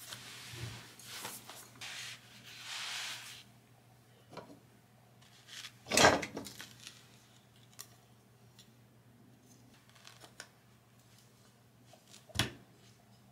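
Parts of a wooden calligraphy brush stand being handled and assembled on a felt mat. Rustling for the first few seconds, then a sharp wooden knock about six seconds in, a few light taps, and another knock near the end as an upright is fitted into the base.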